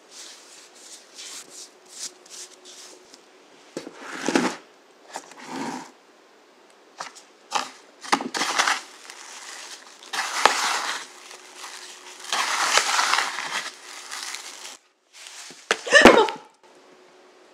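Dough log for sablé cookies being rolled in sugar in a plastic tub: gritty crunching and scraping of sugar granules in irregular bursts, after a few light dabs of a pastry brush applying egg yolk. Near the end comes one sharp knock of the plastic tub against the baking mat, the loudest sound.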